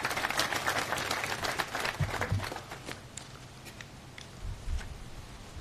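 Audience applauding, the clapping dense at first and thinning out after about three seconds to a few scattered claps.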